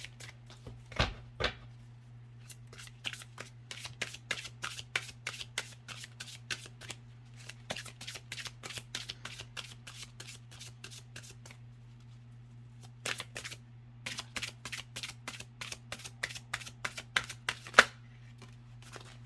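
A deck of glossy oracle cards being shuffled by hand: quick runs of rapid card flicks and snaps, with a pause in the middle and a few louder taps. A steady low hum runs underneath.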